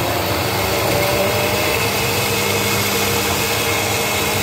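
Hand-held stick blender running steadily in a tall plastic beaker, puréeing fresh tomatoes.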